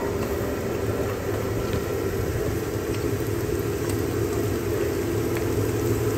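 Sliced onions and green chillies frying in hot ghee in a frying pan, over a steady low mechanical hum that is the loudest thing in the mix.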